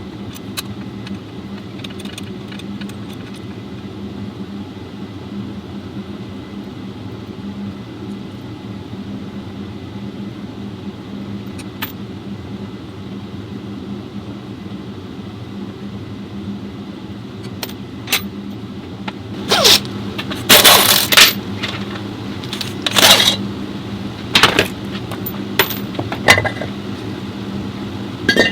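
Metal transmission parts and tools clinking and knocking against each other as an automatic transmission is worked on, with a run of loud, sharp clanks in the last third over a steady low hum.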